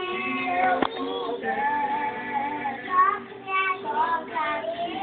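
Young girls singing a song, holding long notes.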